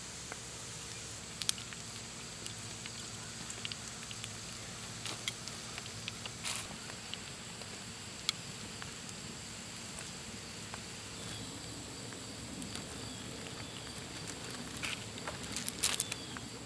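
Pork belly and vegetables sizzling on a griddle pan over a campfire: a steady hiss with scattered pops and crackles, which come thicker near the end.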